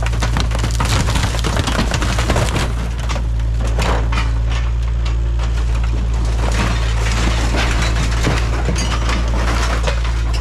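Kubota KX057-5 mini excavator's diesel engine running steadily under load while its bucket and thumb tear into a minibus body, with repeated crunching, cracking and splintering as panels and debris are ripped apart.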